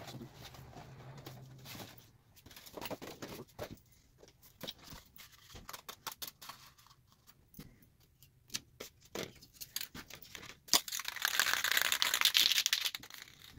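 Light irregular clicks and rustles of handling, then, near the end, an aerosol spray paint can hissing in one steady burst of about two seconds.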